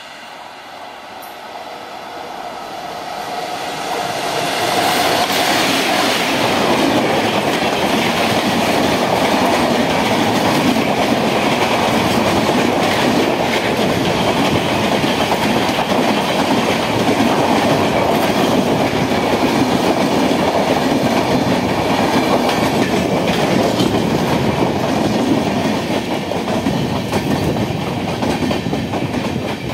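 Amritsar Mail express train running through a station at speed. The sound builds over the first few seconds as it comes in, then holds as a steady, loud rush of passing coaches with the clickety-clack of wheels over rail joints.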